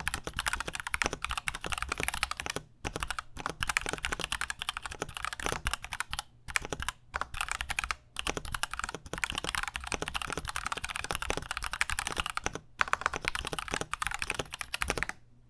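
Fast typing on a KBD67 Lite mechanical keyboard with stock, unlubed Gateron Milky Yellow linear switches: a dense run of keystrokes broken by a few brief pauses, stopping just before the end.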